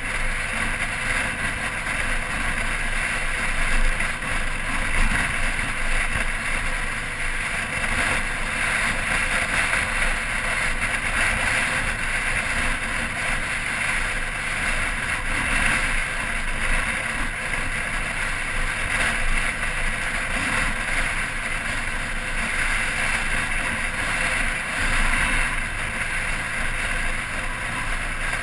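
Motorcycle engine running steadily under way, mixed with a constant rush of wind over the bike-mounted camera's microphone.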